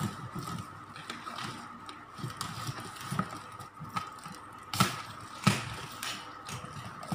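Clear plastic air-column packaging rustling and crinkling as a white pot is worked out of it, with two sharp knocks a little under a second apart near the end.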